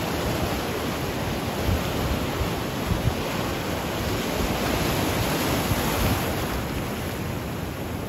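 Ocean surf washing and foaming over a rocky shore shelf, a steady rushing wash, with wind buffeting the microphone in low gusts.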